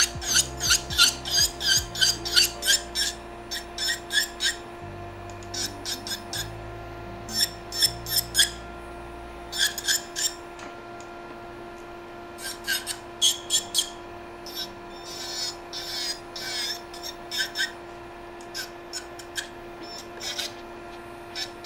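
Electric nail file with a sanding-band bit humming steadily while it rasps against an acrylic nail in many short strokes, several a second, with brief pauses. The filing is loud because the plastic practice hand is hollow.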